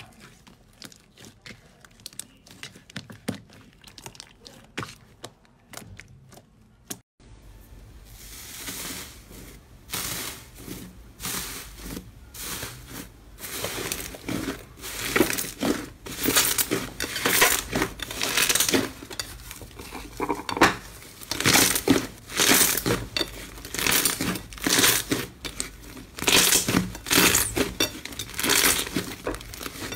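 Slime being squeezed and pressed by hand, making many quick crackling, squelching strokes. About seven seconds in, the sound cuts out for a moment and the squishing resumes louder and denser.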